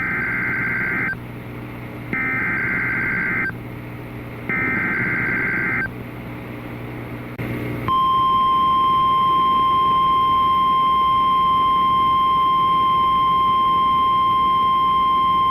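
Emergency Alert System SAME header: three bursts of screechy digital data tones, each about a second long. About 8 s in, the steady high weather-radio warning alarm tone begins and holds.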